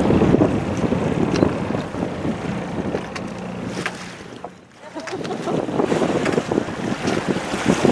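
Wind buffeting the microphone on a boat at sea, with a faint low engine hum and water noise underneath; the noise dips briefly about halfway through.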